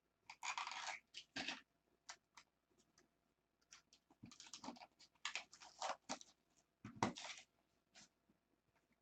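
Trading cards and a plastic magnetic card holder being handled, with irregular short scrapes and clicks, most of them near the start and again from about the middle to near the end.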